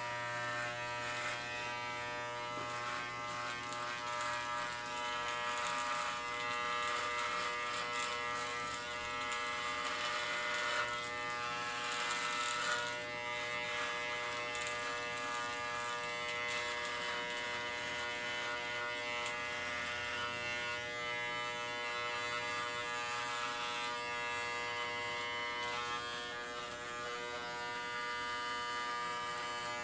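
Cheap corded electric dog clippers buzzing steadily as they trim chest and belly hair.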